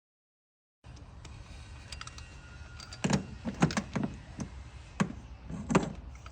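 Several sharp, irregular clicks and knocks of hand tools and parts being handled, with the loudest in the second half.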